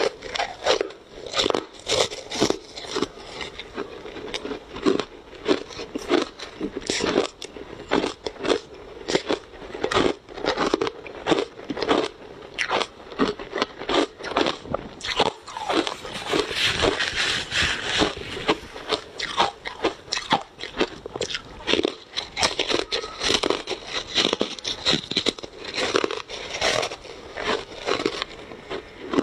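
Ice being bitten and chewed close to the mic, crunching and cracking between the teeth in quick, irregular strokes about two or three a second.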